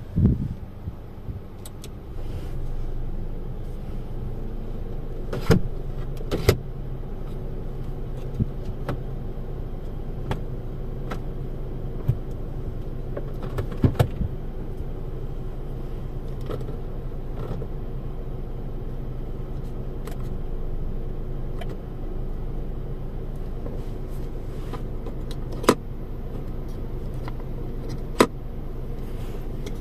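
Interior of a Kia Stonic: a steady hum of the idling engine and climate-control blower, which steps up a couple of seconds in, with scattered sharp clicks from the dashboard knobs and switches being worked.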